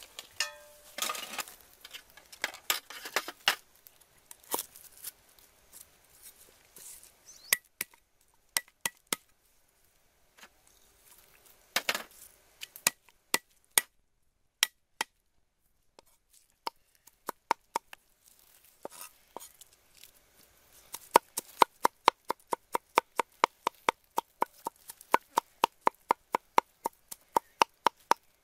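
Meat cleaver striking a round wooden chopping block while crushing and mincing garlic cloves. Scattered single knocks at first, then from about two-thirds of the way in a fast, even run of chops, about four a second.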